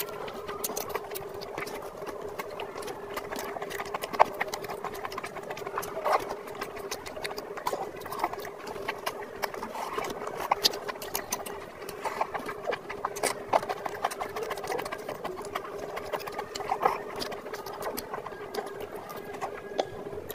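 Close-miked chewing and lip smacks, with wet squelches of fingers mixing rice and curry, as many short clicks over a steady hum.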